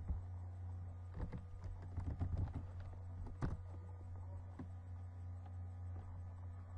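Computer keyboard keys tapped in a short burst of typing and a few mouse clicks, from about a second in to about three and a half seconds in, over a steady low hum.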